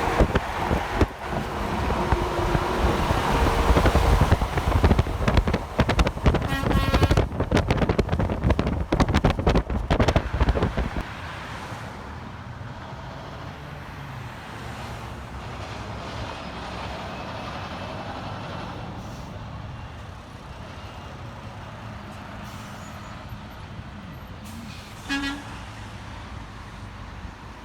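A heavy truck passes close by with a loud rumble for about the first ten seconds, and its horn sounds in the middle of the pass. After it goes, steady highway traffic noise carries on, with one brief horn toot near the end.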